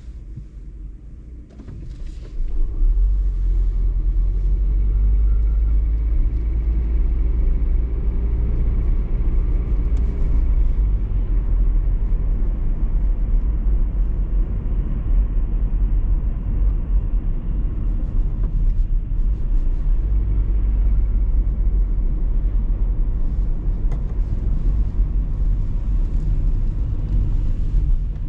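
A car on the move, heard as a steady, loud low rumble that jumps much louder about two and a half seconds in.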